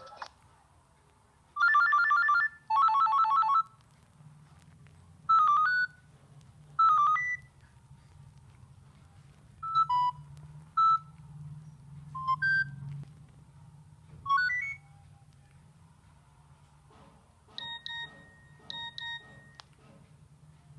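Nokia 6600 Symbian phone playing a series of short electronic alert tones one after another: two buzzy chord bursts near the start, then brief rising chirps and single blips spaced a second or two apart, and near the end a quick run of repeated beeps.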